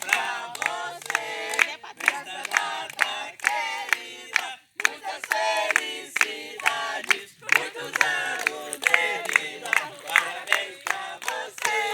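A group of people singing a birthday song together, clapping along in a steady rhythm of about two to three claps a second.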